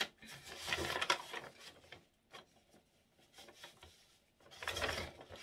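Rustling and light clicks of makeup packaging being handled and rummaged through in a box, in two spells with a near-quiet pause between them.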